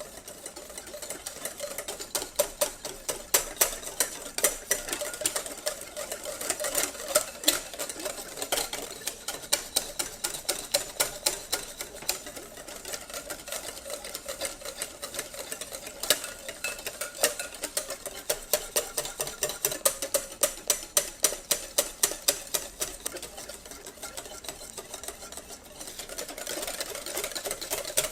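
A coffee, sugar and hot water mixture being whipped by hand into dalgona coffee foam, the utensil clicking against the side of the bowl in fast, even strokes a few times a second.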